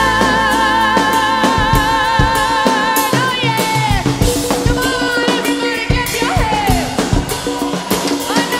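Live band playing a pop-rock song: a female singer holds one long, wavering note for about three seconds, then lets it slide down, with shorter sung phrases later. Drum kit with rimshots and bass guitar play underneath.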